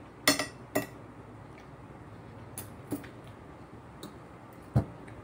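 Metal spoon and fork clinking against a plate and bowl while eating. There are about six short, sharp clinks at irregular intervals, the loudest two close together near the start and another near the end.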